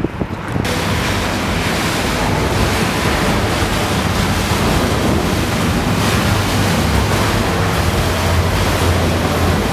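Loud, steady rush of wind buffeting the microphone mixed with water noise, with a low rumble underneath. It starts abruptly about half a second in.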